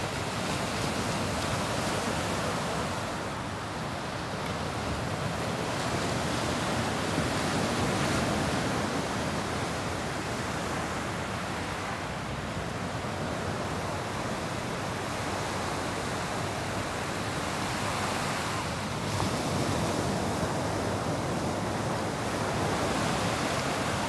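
Small waves breaking and washing up on a sandy beach: a continuous surf wash that swells and eases gently every few seconds.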